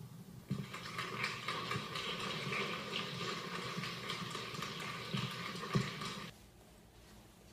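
Crowd noise from a large seated audience in an auditorium, a dense rustle of many small sounds, heard through a television's speaker; it starts about half a second in and cuts off abruptly about six seconds in.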